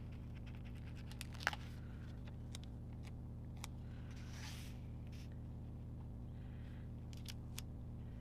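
Quiet handling of planner stickers and paper pages: scattered small clicks and taps, one sharper click about a second and a half in, and a brief papery rustle about four seconds in, over a steady low electrical hum.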